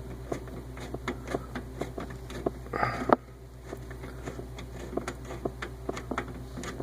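Irregular small clicks and taps, several a second, over a low steady hum, with a short louder scraping rustle about three seconds in: hands working the water heater's service-valve fitting, drain hose and cap.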